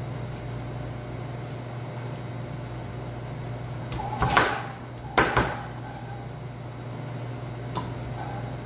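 A chef's knife knocking and scraping against a plastic cutting board while cutting tuna belly: a short scrape about four seconds in, then two sharp knocks just after five seconds, over a steady low hum.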